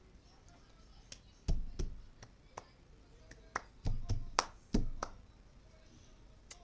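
Plastic cup and hands tapping and knocking on a book: scattered sharp taps, with dull thumps about a second and a half in, around four seconds and just before five seconds, in no steady rhythm.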